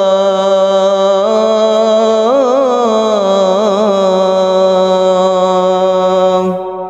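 A muezzin's voice in the adhan, holding the long ornamented vowel of 'hayya 'ala s-salah' with winding trills in the middle of the note. The voice cuts off about six and a half seconds in, leaving an echoing tail.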